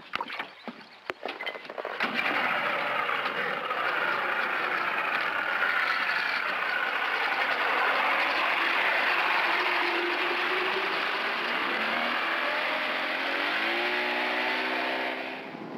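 A few knocks, then an outboard motor comes in loud about two seconds in and runs at speed as a small open boat pulls away across the water. Its pitch climbs near the end before the sound drops away.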